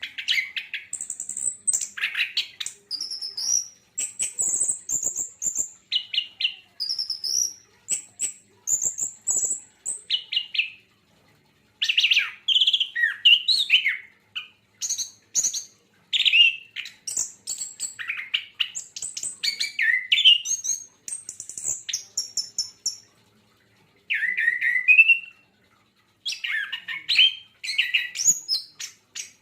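Orange-headed thrush singing: a varied run of quick, high-pitched whistled and chattering phrases, delivered in bursts with short pauses between them.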